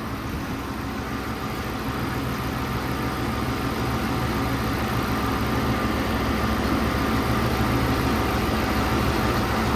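Stage-2-cammed 5.7 L Hemi V8 of a Dodge Charger R/T idling steadily while warming up after its first start, gradually getting louder. The owner hears a small exhaust leak at the headers.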